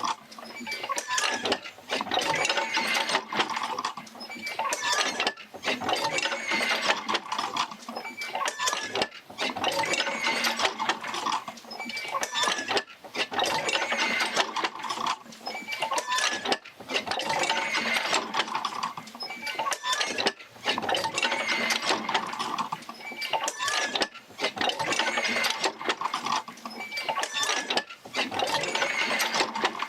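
Oil-field field wheel rocking back and forth, driven by the Fitzgerald Rig and pulling jerker lines out to pumps. Its linkages creak, squeak and clatter in a slow repeating cycle, about once every four seconds.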